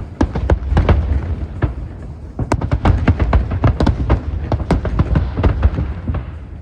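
Aerial fireworks bursting in rapid succession, a dense run of sharp cracks and bangs over deep, overlapping booms.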